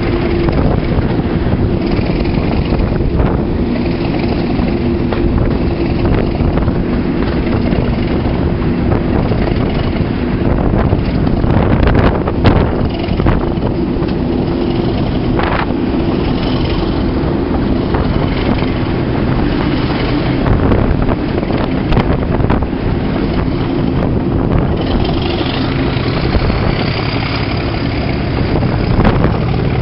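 Class 37 diesel locomotive's V12 engine running steadily under way, heard from the open cab window with wind buffeting the microphone. A few sharp knocks from the running gear and track come through.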